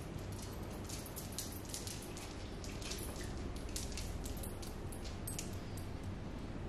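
A Weimaraner moving about on a hard floor: irregular light clicks and wet ticks as it walks up and sniffs, over a steady low hum.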